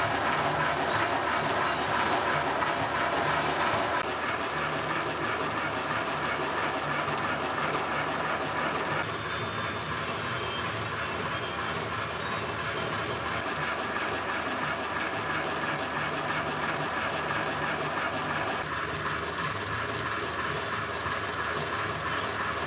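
Universal milling machine running with a homebuilt hobbing attachment: a steady mechanical running noise with a thin, steady high-pitched whine over it, dropping slightly in level about four seconds in.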